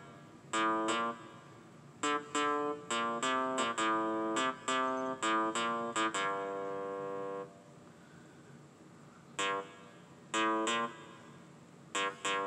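Spacey synth bass riff played back from a computer: short staccato synth notes in choppy phrases, with one longer held note about six seconds in and pauses of a second or two between phrases.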